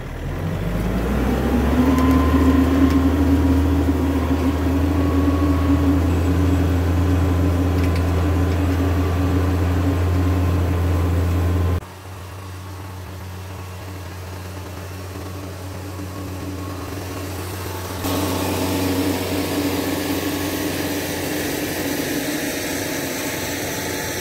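Kioti RX7320 tractor's diesel engine working under load as it pulls a chisel plow through the ground, revving up over the first couple of seconds and then holding steady. About halfway through it drops suddenly to a quieter, more distant sound, and it grows louder again a few seconds later.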